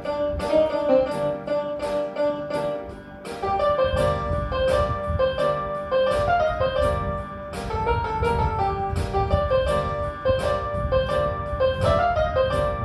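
Portable electronic keyboard played with a piano sound: a quick melody of struck notes in the right hand over left-hand chords, which fill out the low end from about four seconds in after a brief lull.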